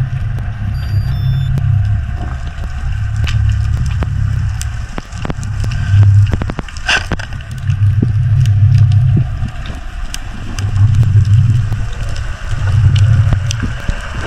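Underwater ambience: a deep rumble that swells and fades about every two seconds, with many scattered sharp clicks and crackles over it.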